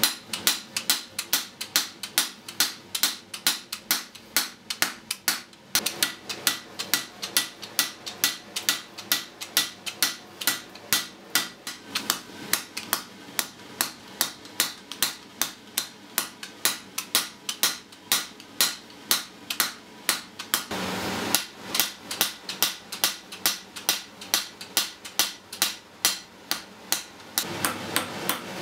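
Blacksmith's hand hammer striking red-hot iron on an anvil in a steady rhythm of sharp blows, about three a second, with a brief pause about three quarters of the way through.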